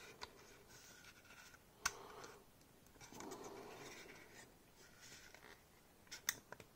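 Faint scraping and rubbing of plastic model-kit parts, an engine pod being pushed onto the fuselage of a Revell A-wing kit by hand and dry-fitted without glue. A sharp click about two seconds in and a few more clicks near the end.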